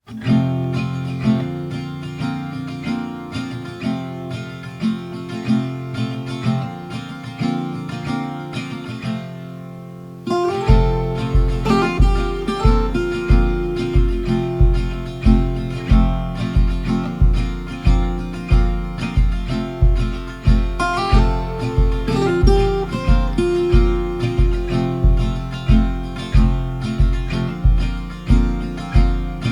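Background music: strummed acoustic guitar, joined by a steady bass beat about ten seconds in.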